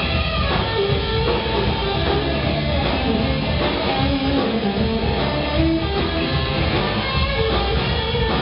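Rock band playing live, the electric guitar to the fore, its line moving over a dense low end.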